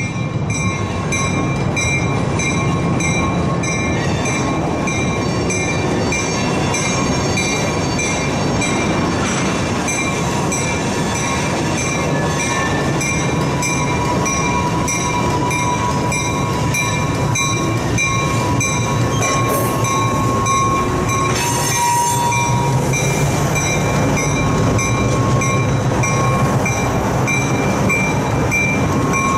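EMD NW2 switcher's V12 diesel engine running under load as it hauls tank cars slowly over a street crossing, with a bell ringing steadily. A thin wheel squeal comes and goes through the middle.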